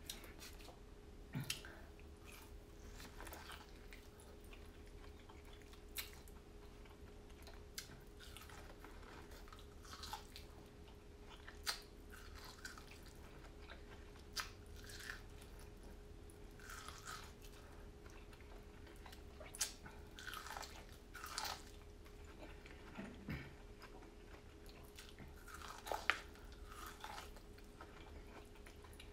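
Close-miked chewing and wet lip-smacking of a person eating, with scattered short mouth clicks and smacks.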